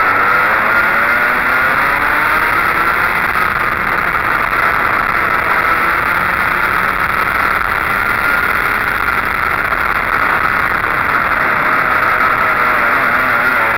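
Racing go-kart engine running hard at high revs, heard close up from on board the kart, its pitch wavering a little as the kart goes through the corners.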